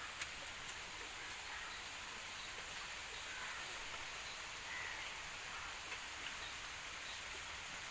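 Steady background hiss with a few faint, short ticks.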